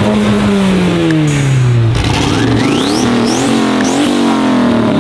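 Car engine revving: the engine note falls for about two seconds, then climbs again in several quick revs.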